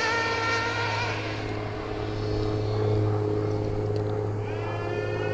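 Traxxas Nitro 4-Tec 3.3 RC car's small glow-fuel nitro engine screaming at high revs and fading about a second in as the car speeds off, then running on more quietly and revving up again with a rising whine near the end.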